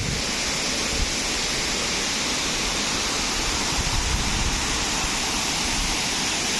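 Waterfall crashing steadily, a loud, even rush of falling water with a strong hiss.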